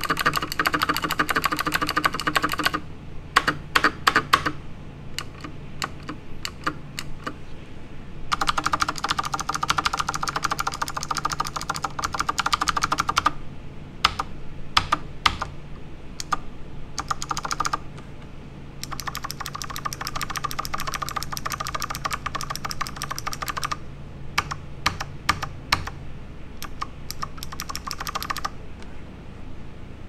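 Akko Horizon 3087 tenkeyless mechanical keyboard with clicky Akko Blue switches and PBT double-shot Cherry-profile keycaps being typed on. Runs of fast, dense typing alternate with spells of slower, separate keystrokes, each a sharp click.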